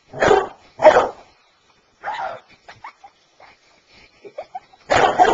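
Basset hound barking: two loud barks in quick succession, a softer one about two seconds in, and another loud one near the end, with small faint sounds between.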